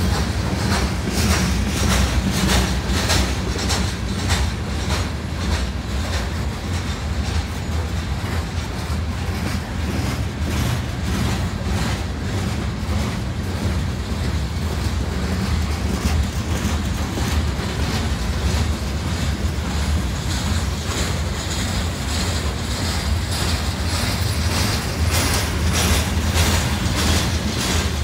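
Loaded aggregate hopper cars of a freight train rolling past close by: a steady low rumble of steel wheels on rail, with repeated clacks from the wheels that come thicker near the start and again near the end.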